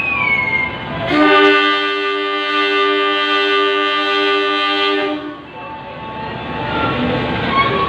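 A diesel passenger train's horn sounds one long, steady blast of about four seconds as the train is about to depart, followed by the low rumble of the train.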